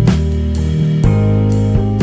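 Jazz background music with a steady beat, low bass notes changing about every half second.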